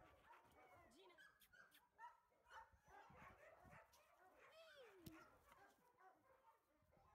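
A dog gives faint whines and short yelps, one sliding down in pitch near the end, with soft bumps and rustles of phone handling mixed in.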